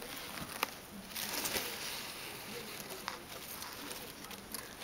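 Shredded paper bedding in a hamster cage rustling and crinkling, with scattered small clicks and a louder rustle about a second in.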